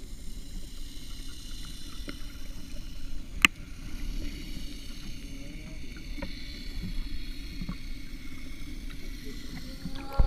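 Underwater sound picked up by a submerged camera: a steady low rumble of water with faint, steady high tones above it. There is one sharp click about three and a half seconds in, and a loud knock at the very end.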